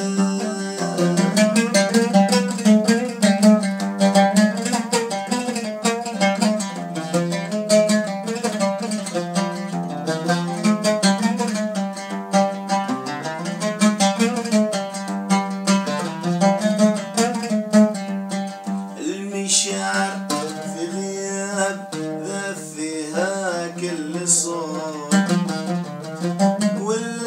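Solo oud playing an instrumental melody, a fast run of quick plucked notes.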